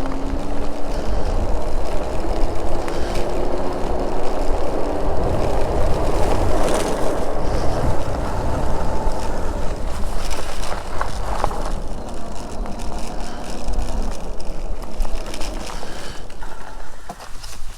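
Riding an electric bike: wind rumbling on the microphone and tyre noise, with a faint motor whine that rises slightly in pitch over the first few seconds.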